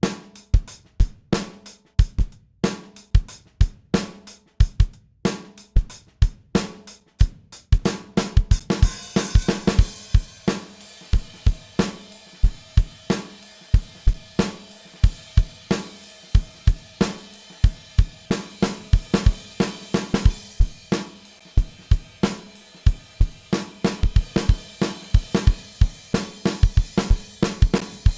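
Drum kit playing a steady beat of kick and snare hits. About eight seconds in, hi-hat and cymbals join with a bright wash over the groove.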